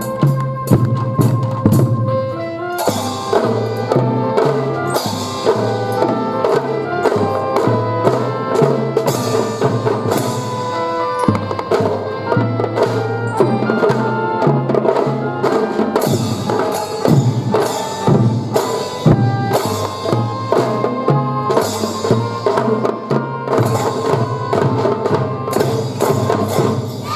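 Children's drum-and-fife band (kotekitai) playing a march: drums beating steadily under a melody of held notes. The playing stops abruptly at the very end.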